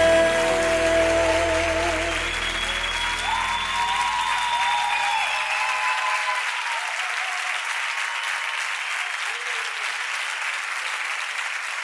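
Audience applauding as a pop ballad ends: a final held sung note and the band's closing chord fade out over the first few seconds, leaving steady applause.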